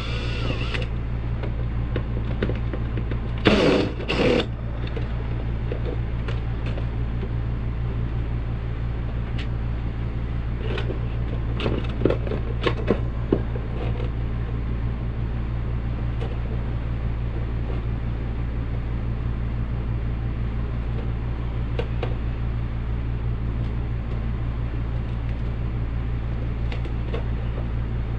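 Screws being removed from a ceiling light fixture: two short mechanical bursts about four seconds in, and clicks and scrapes around twelve seconds, over a steady low hum.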